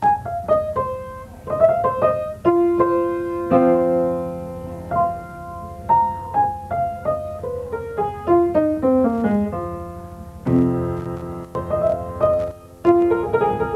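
Grand piano played solo: a melody of single struck notes and held chords, with a quick run of falling notes about eight to nine seconds in.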